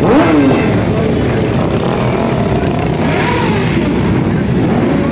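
Motorcycle engines running on the street, with a rev that rises and falls right at the start and lighter revving about midway.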